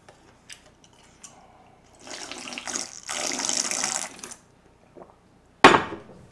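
Slurping and gulping cold dongchimi broth from a bowl in two long noisy draws, then a sharp clunk near the end as the bowl is set down on the table.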